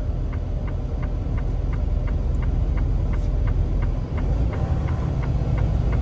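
Hazard-light flasher clicking at an even pace, several clicks a second, over the steady low rumble of a semi truck's engine and tyres heard inside the cab.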